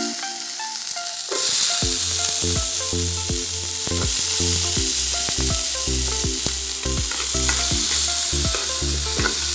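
Sliced shallots sizzling in hot oil in an aluminium pan, the sizzle getting louder about a second in, while a metal slotted spoon stirs them and clicks against the pan.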